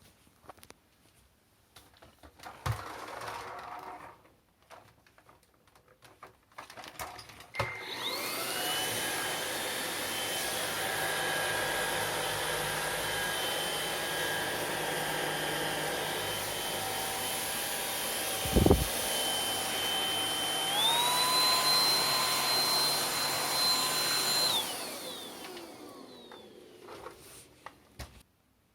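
MOOSOO K17 cordless stick vacuum: a few clicks and knocks as it is handled, then the motor spins up to a steady high whine. About two-thirds of the way through, the whine steps up to a higher pitch, then it spins down and stops. A single thump comes midway through the run.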